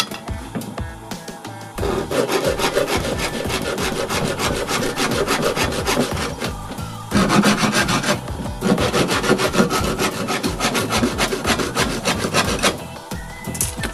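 Handsaw cutting through a wooden batten in quick back-and-forth strokes. The sawing starts about two seconds in and stops near the end.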